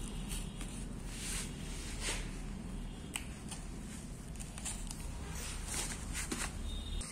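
Brown packing tape being pulled and torn off a rolled corrugated-cardboard parcel, with the cardboard rustling and crackling in irregular bursts and a few sharp clicks.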